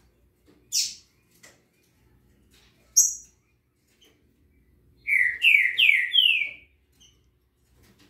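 Caged songbirds calling: a sharp high chirp about a second in and another at three seconds, then a run of four loud slurred whistled notes near the end.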